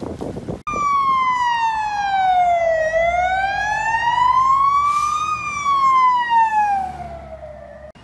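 Emergency vehicle siren wailing in slow sweeps: it starts abruptly, falls, rises and falls again, each sweep taking two to three seconds. A short hiss cuts in about five seconds in.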